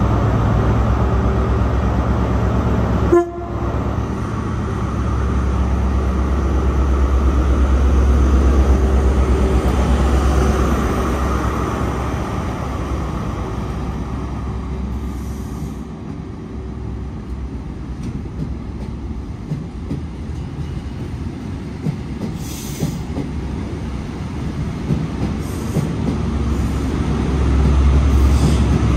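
A pair of Class 43 HST diesel power cars hauling a measurement train through a station. The engines give a heavy low rumble that is strongest in the first third and swells again near the end as the rear power car comes past. Between them the coaches roll by more quietly, and there is a single sharp bang about three seconds in.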